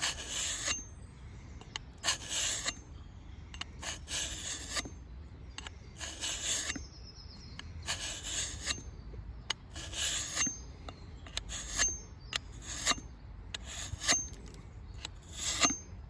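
A handheld pocket tool sharpener's axe slot drawn along a blunt axe edge: a dozen or so rasping strokes, roughly one a second, each ending in a brief thin metallic ring. The edge is being worked back from blunt.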